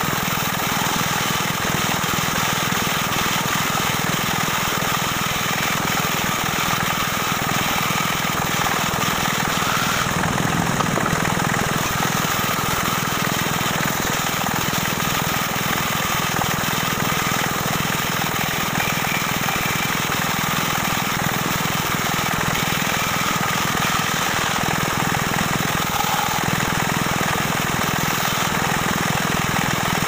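Band saw running steadily while its blade cuts through a thick block of wood.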